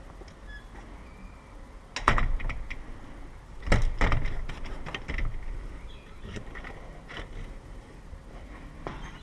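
Metal clicks and clatter of a door lock and handle being worked, with two louder clacks about two and four seconds in and lighter clicks after.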